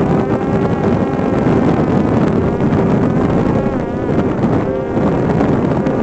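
Buzzing whine of a Parrot Disco fixed-wing drone's electric motor and propeller in flight, its pitch wavering up and down, mixed with rushing wind noise.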